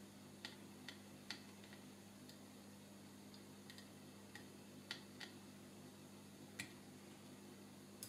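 Faint, irregular light clicks and ticks of metal tweezers and a soldering iron tip touching a small circuit board while a tiny surface-mount part is soldered, over a low steady hum.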